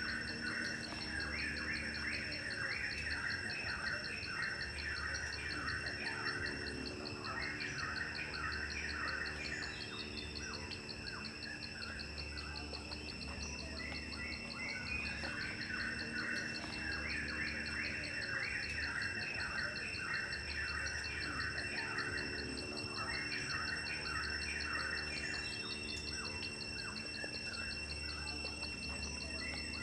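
Outdoor ambience: insects droning steadily at a high pitch, with birds chirping in bouts of several seconds at a time.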